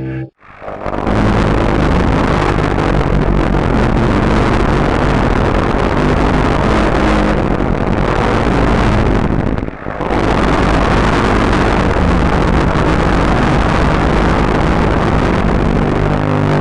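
Loud, harsh rushing noise with a low hum under it, in two long stretches broken by a brief gap about ten seconds in.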